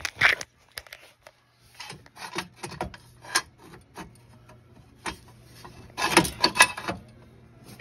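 Metal jack stand being handled: its locking pin and small chain clink, rub and scrape in irregular knocks, with a louder run of clatter about six seconds in. A faint steady low hum runs underneath.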